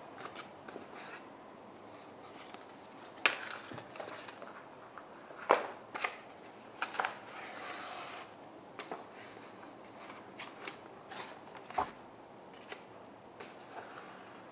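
Sheets of paper rustling and crinkling as they are handled and yarn is drawn through punched holes for a saddle stitch. Sharp snaps stand out about three, five and a half and twelve seconds in.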